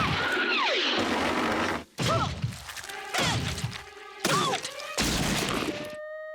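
Cartoon slapstick sound effects: a run of crashes and thuds with swooping, sliding whistle-like glides, ending in a short held musical chord.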